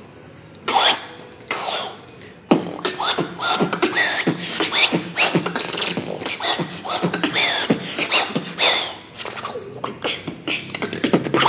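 Solo human beatboxing: two separate mouth hits, then from about two and a half seconds in a fast, dense run of clicks, snares and short squeaky pitch glides that stops suddenly at the end.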